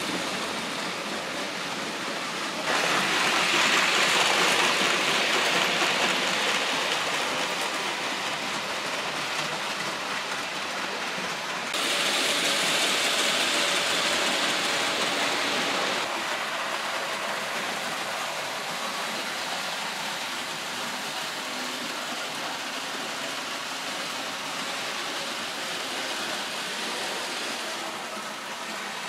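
Märklin H0 model trains running on metal M-track, a steady rolling rumble and hiss of wheels and motors. It jumps louder abruptly about three seconds in and again about twelve seconds in, then slowly eases.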